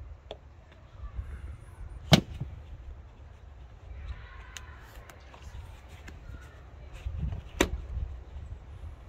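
Two sharp clicks about five and a half seconds apart, the second the louder, as a cable clip on a Mini convertible top's frame is worked loose by hand, with fabric rustling and a low rumble underneath.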